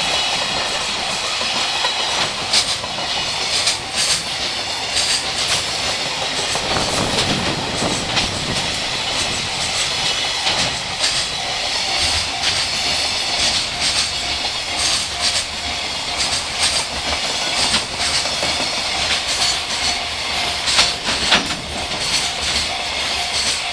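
A long freight train passing over a level crossing, its wheels clicking over the rail joints throughout. The crossing's warning bell rings steadily underneath and is clearest near the end.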